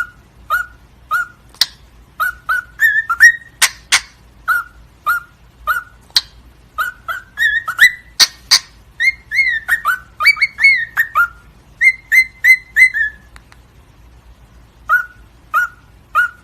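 A pet parrot whistling a quick string of short chirps that rise and fall in pitch, mixed with a few sharp clicks, pausing briefly before a last few chirps.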